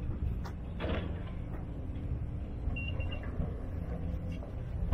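Driver's door of a Nissan e-Power hatchback being unlatched and opened: a few short clicks over a low, steady background rumble. A brief high double tone sounds about three seconds in.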